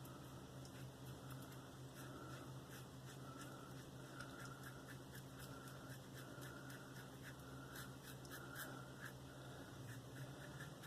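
Gillette Super Click safety razor scraping over lathered facial skin in many short strokes: a faint, scratchy rasp over a low steady hum.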